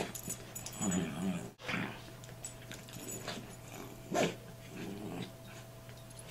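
Bichon Frise dogs growling in several short bursts while play fighting over a toy, a contest for control of it as much as play.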